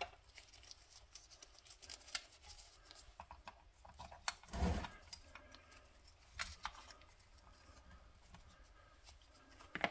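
Faint, scattered clicks and small metallic handling sounds of tools and hardware being worked on a radio chassis, with a duller knock about halfway through.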